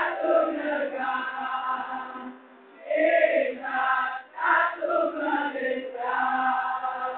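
A large group of students singing together, in sustained phrases, with a short break about two and a half seconds in.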